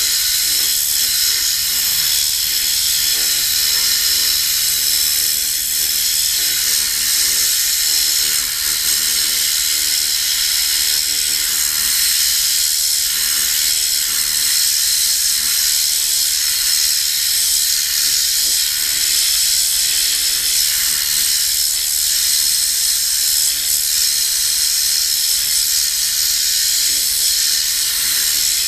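Tornador compressed-air cleaning gun blasting air into car carpet: a loud, steady hiss, with a faint hum coming and going underneath.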